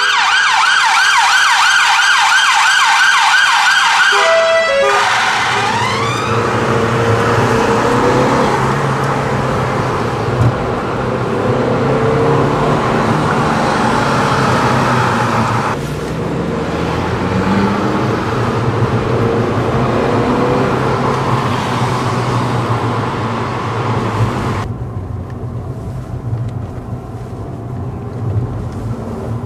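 A police car siren in a fast yelp, rapid rising sweeps repeating, which stops after about four seconds and ends with one slower rising wail. The rest is the steady engine hum and road noise of a car being driven, heard from inside the car.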